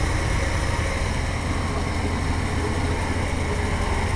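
1988 Chevy Silverado 1500's engine idling steadily, fitted with new exhaust manifolds that still have a slight leak.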